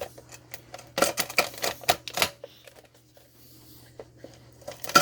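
Plastic wrapping on cans of pop crackling and snapping as the small box-cutter blade of a multi-tool cuts through it. There is a dense run of sharp clicks and cracks starting about a second in, and a few more near the end.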